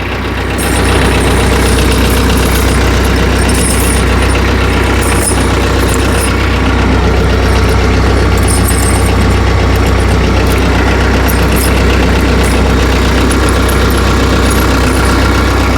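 Tractor engine idling steadily with a deep, even hum, growing a little louder about a second in.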